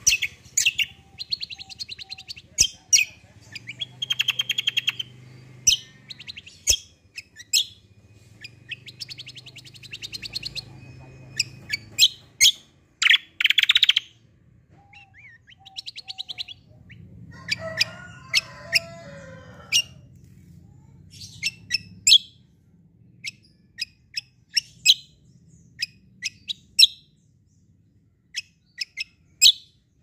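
Caged kecial kombo (cucak kombo) singing: quick rattling trills and sharp high chips in a long run, with a lower, busier phrase past the middle and sparser single chips near the end.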